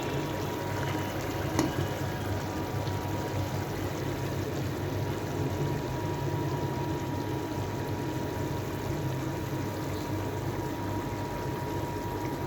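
Steady watery noise of a pan of sauce simmering, over a low steady hum and a faint constant tone, with a single click about a second and a half in.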